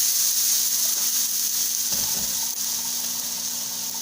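Garlic, ginger and onion sautéing in oil in a pot with leftover cooked rice just added, a steady sizzle. There is a brief soft low thump about two seconds in.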